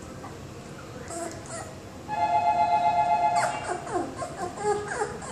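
Background music with a held chord about two seconds in, then a one-month-old Welsh Springer Spaniel puppy whimpering: many short, high, falling whines in quick succession over the music.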